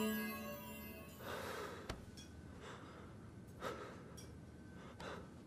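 Sustained music tones fade out in the first second. Then a person's heavy breathing follows: about four audible breaths or gasps roughly a second apart.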